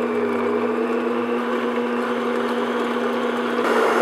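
Stand mixer motor running steadily with its whisk attachment beating cold heavy cream in a glass bowl, whipping it towards soft peaks. The sound grows a little louder and brighter near the end.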